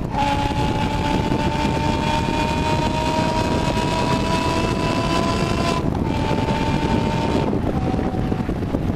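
BMW M6 with 100-cell race-cat headers, secondary cats deleted and stock resonators and mufflers, running under way. Its exhaust note climbs slowly in pitch and drops sharply twice, about six seconds in and again about a second and a half later, like gear changes.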